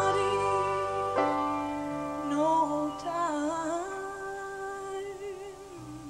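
Live pop band with a female vocalist: sustained chords slowly fading under a held, wavering sung note with vibrato, as the song draws to its close.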